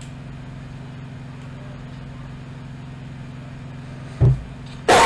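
Steady low electrical hum, then about four seconds in a short low thump and, near the end, a loud vocal burst from the player close to the microphone.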